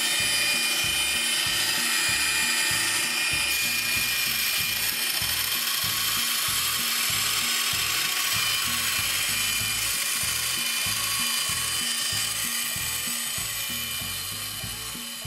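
Delta woodworking bandsaw, fitted with a 3/8-inch metal-cutting blade, cutting a part out of 16-gauge sheet steel. It makes a steady, high-pitched whine of blade on metal that dies away over the last few seconds.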